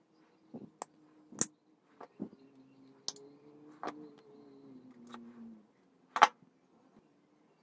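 Sharp clicks and taps of needle-nose pliers and tiny metal parts being handled, about seven scattered over several seconds, the loudest a little after six seconds in. A faint low tone slides slowly downward underneath for a few seconds in the middle.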